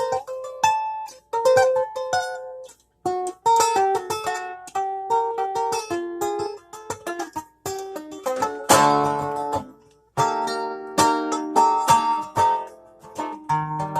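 A plucked string instrument picking out a melody note by note, broken by a few short pauses, with a fuller chord ringing out about nine seconds in.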